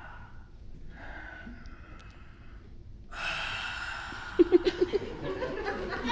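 A man's loud, breathy gasps and strained exhales, two long ones, the second broken about four seconds in by a quick run of about six short throaty pulses.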